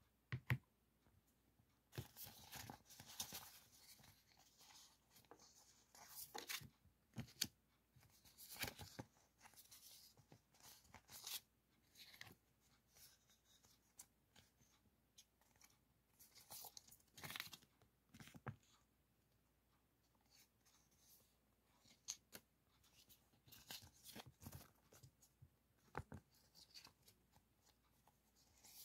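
Quiet, irregular rustling and crinkling of paper sticker sheets being handled and flipped close to the microphone, with a few sharp taps.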